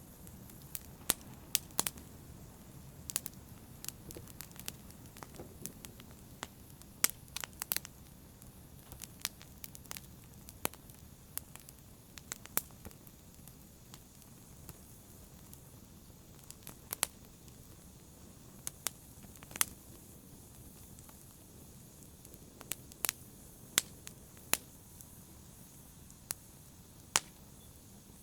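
Open fire crackling: irregular sharp pops and snaps, a few each second, over a steady low rumble of burning.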